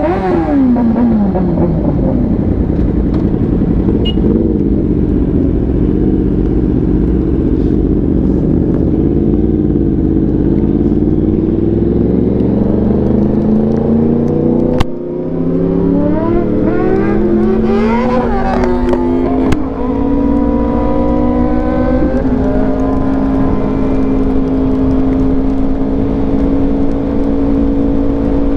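Yamaha R1 inline-four sport bike with an SC Project exhaust, ridden at speed. The engine note drops at first and then holds steady. About fifteen seconds in there is a sharp crack, and the engine revs up through several quick upshifts in a row before settling into a steady cruise.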